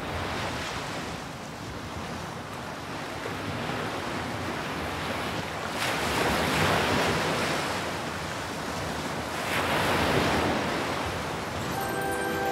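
Waves washing onto a shore in a steady rush that swells twice, once about halfway through and again a few seconds later. A few held music notes come in right at the end.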